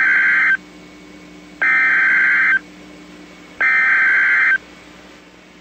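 Emergency Alert System SAME header: loud, warbling digital data tones that open an EAS alert, here a mock tornado warning. The end of one burst is followed by two more, each about a second long and a second apart.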